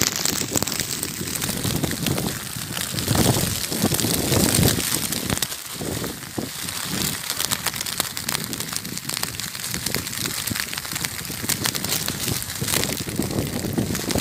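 Small hailstones falling on gravelly ground, a dense crackle of countless tiny hits, with low surges of wind noise now and then.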